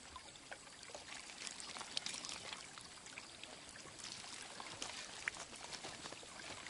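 Water poured in a thin trickle from a plastic bottle onto a goat's muzzle, with a few faint clicks.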